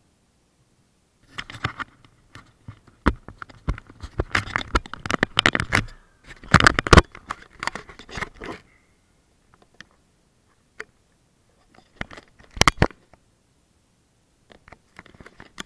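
Handling noise from an action camera being picked up and moved: scraping, rubbing and knocks on the camera body, loudest about six to seven seconds in, then a few scattered clicks and a short burst of knocks near the end.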